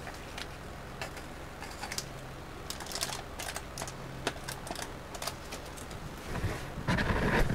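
Small items handled on a work table: scattered light clicks and taps, then louder rustling and bumps near the end.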